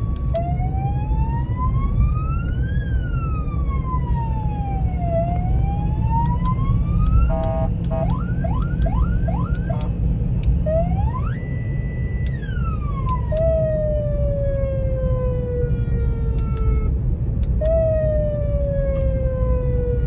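Remote-controlled car-mounted police-style siren (VIP hooter) cycling through its tones: a slow rising and falling wail, a quick run of short rising whoops, a rise to a held tone that drops away, then long falling tones. A low road and engine rumble of the moving car runs underneath, heard from inside the cabin.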